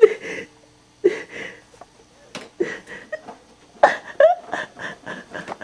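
A person laughing in several short, separate bursts.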